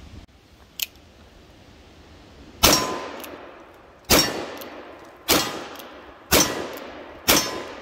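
Five shots from a .38 Special Colt 1851 Navy Richards-Mason cartridge-conversion revolver, fired about a second apart, each followed by the clang of steel targets being hit. A short click sounds about a second before the first shot.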